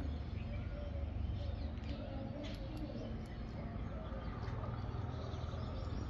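Doves cooing in short repeated low notes, with a few faint bird chirps over a steady low rumble of outdoor background noise.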